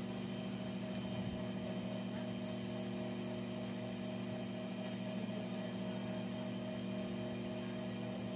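Steady hum of an industrial sewing machine's electric motor running idle, with no stitching.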